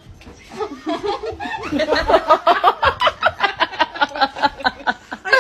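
A person laughing hard: a chuckle that builds about a second and a half in into a long, fast run of 'ha-ha-ha' bursts, about five or six a second.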